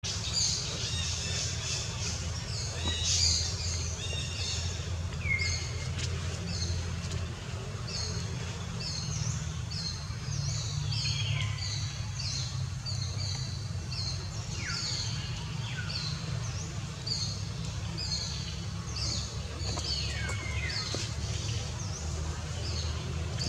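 Wild birds chirping, with many short high calls and falling whistles repeating throughout, over a steady low hum.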